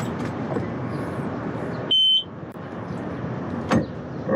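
A single short, high electronic beep from the Evinrude 90 outboard's warning horn as the ignition is switched on, followed by a click and another brief beep near the end. The engine does not start: it is seized.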